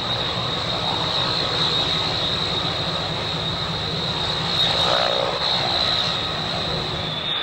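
Hawker Siddeley Andover C.1's twin Rolls-Royce Dart turboprops running as it taxis: a steady high-pitched whine over a low engine drone, swelling a little about five seconds in.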